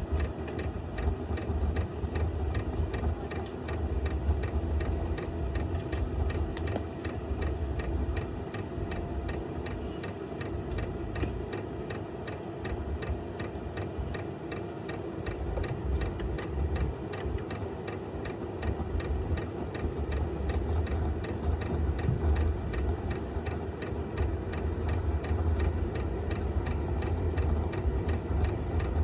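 Vevor diesel air heater running steadily: a low rumble of combustion and blower with a fast ticking over it, typical of the heater's fuel dosing pump.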